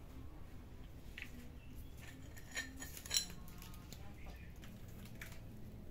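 Two light clinks, like dishes or cutlery knocking, a little over half a second apart, the second the louder and briefly ringing, over a low steady room hum.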